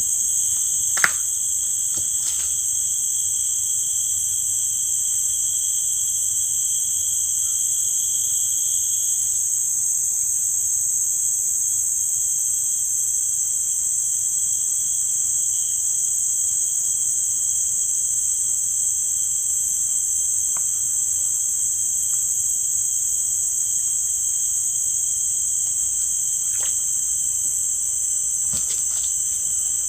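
Steady, high-pitched insect chorus running without a break, with a second, lower steady tone under it. A single sharp click about a second in, and a couple of faint ticks near the end.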